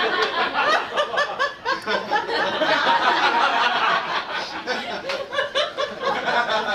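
A man laughing into a microphone in a long, drawn-out run of chuckles and snickers. It is a put-on laugh, ground out on purpose to mimic someone forcing a laugh.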